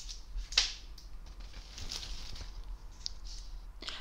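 Close-miked eating sounds of a candy: one sharp crunch about half a second in, then softer crackling mouth and chewing sounds.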